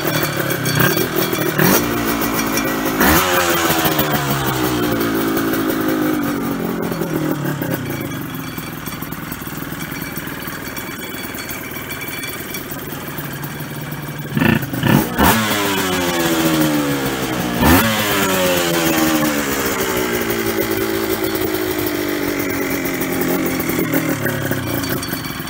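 Honda NSR250 two-stroke V-twin with a Tyga 300 conversion, running through a new stainless Tyga full exhaust with expansion chambers: it is blipped sharply about six times, three in the first few seconds and three more around the middle, each time the revs snapping up and sinking slowly back to a steady idle.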